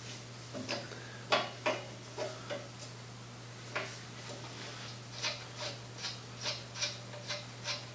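A wrench working a 5/8-inch nut loose on a cast-iron Singer treadle base, giving a series of small metallic clicks. They are scattered at first, then come evenly at about two or three a second from about five seconds in.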